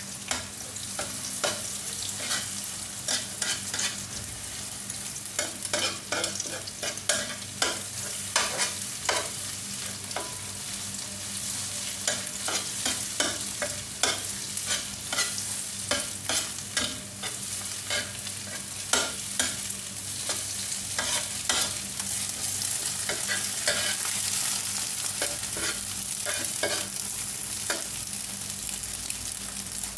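Eggs sizzling in hot oil in a nonstick wok while a metal spoon stirs and breaks them up, clicking and scraping against the pan many times. The clicks thin out in the last few seconds and the steady sizzle carries on.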